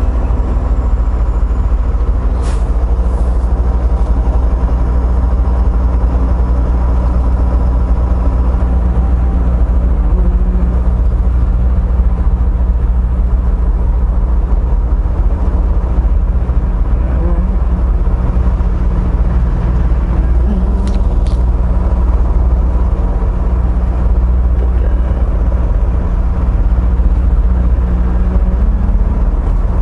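A semi truck's diesel engine running with a steady low drone, heard from inside the cab as the truck rolls slowly. A few short sharp clicks come a couple of seconds in and again about two-thirds of the way through.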